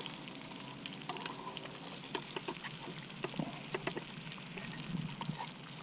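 Crappie fillets frying in a pan of hot oil: a steady sizzle with scattered small pops and crackles.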